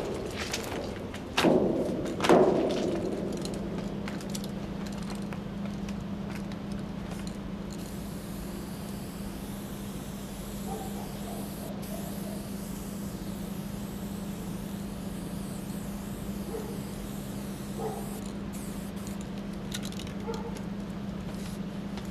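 Aerosol spray paint hissing from a can being sprayed onto a steel freight car. Two ringing metal clanks come near the start, and a steady low hum runs underneath.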